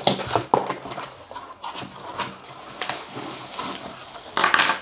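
A cardboard box being worked open by hand: a series of short scrapes, taps and rustles from the flaps and packing tape, then a loud burst of bubble-wrap crinkling near the end as the wrapped contents are pulled out.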